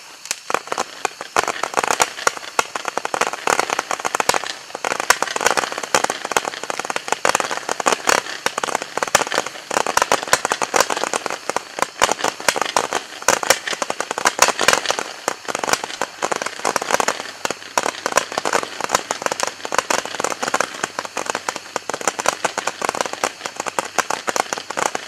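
Neon barrage candles, six 100-shot tubes, firing: a dense, continuous rattle of small pops coming many times a second without a break.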